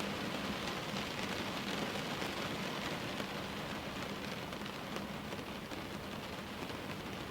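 Steady rain falling, with scattered single drops ticking through the hiss.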